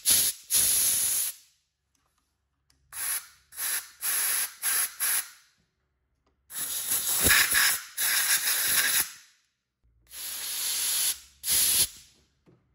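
Compressed-air blow gun blasting at a carburettor in repeated bursts of hissing air: a few short blasts, then longer ones of one to three seconds each, with gaps between.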